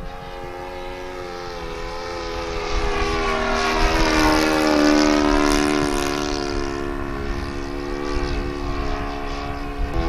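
OS 52 four-stroke glow engine on a radio-controlled model airplane, buzzing steadily in flight. It grows louder as the plane passes at about five seconds in, then fades away.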